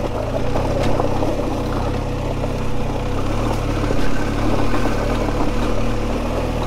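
BMW GS adventure motorcycle's boxer-twin engine running steadily at low revs on a rough gravel track, with tyres crunching over loose stones.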